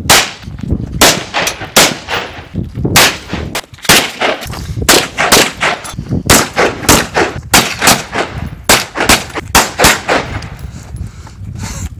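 AR-style rifles firing rapid semi-automatic shots, often two or three a second at uneven spacing, each shot trailing a short echo. The firing stops about ten and a half seconds in.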